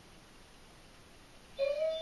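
Near quiet, then about one and a half seconds in a German shorthaired pointer starts to howl with a high, held note. She is howling from separation anxiety.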